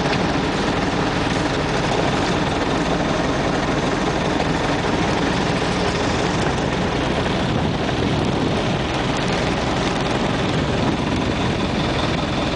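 Fishing boat's engine running steadily, an unbroken low drone.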